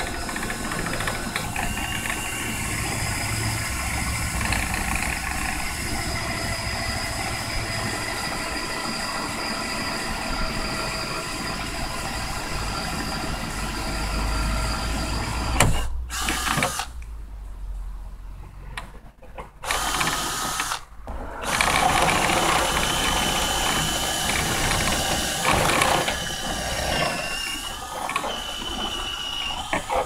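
Cordless drill turning a long spade bit through an RV roof, the motor running steadily. It stops for a few seconds a little past halfway, with one short run in between, then starts again and runs on a bit louder.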